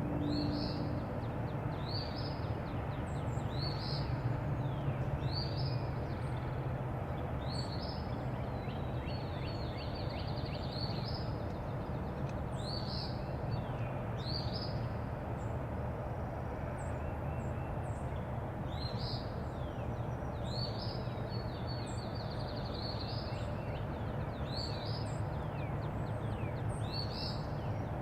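Songbird singing short, high, falling phrases about every two seconds, some ending in quick trills, over a steady low background rumble.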